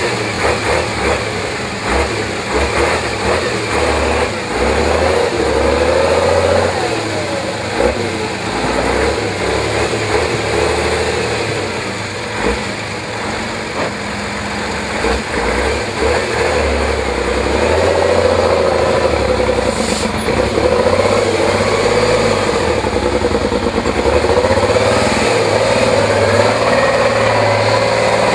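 Praga V3S trial truck's engine working hard under load, revving up and down repeatedly as the truck crawls through deep ruts. There are a few short thumps in the first half, and the engine is held harder and louder through the second half.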